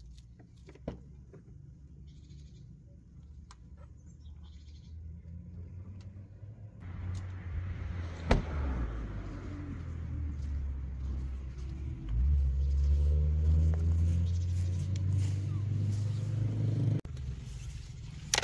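A motor vehicle engine running, growing louder from about seven seconds in and holding a steady low hum that rises slightly in pitch, then cutting off abruptly near the end. A single sharp knock comes about eight seconds in.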